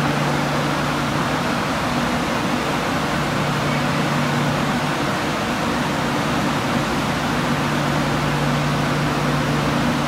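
Steady whirring hum of a KTX high-speed train standing at the platform, its equipment and cooling fans running, with a low hum that drops out for a few seconds mid-way and returns.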